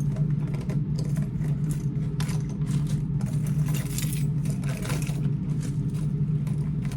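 Steady low hum of a running car heard from inside the cabin, with scattered rustling and clicking of small things being handled.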